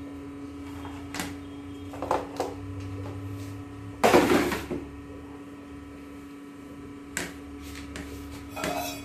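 A yellow plastic kitchen container being handled and put away, with one loud clatter about four seconds in and a few light knocks around it, over a steady electrical hum.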